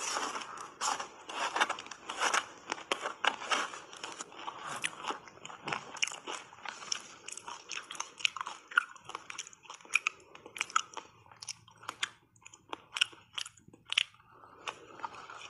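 Shaved ice being bitten and crunched between the teeth in big mouthfuls: dense, irregular crackling crunches with chewing.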